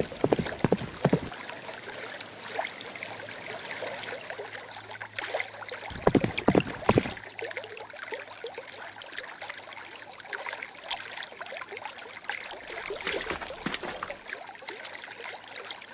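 Shallow stream running and babbling over stones, a steady rush of water. Short clusters of sharper, louder strokes stand out about a second in and again around six to seven seconds in.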